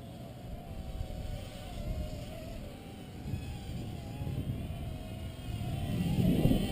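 Dromida Verso quadcopter's small electric motors and propellers whining, the pitch wavering up and down as the motors correct against the gusts. Heavy wind buffeting on the microphone runs underneath and gets much louder near the end.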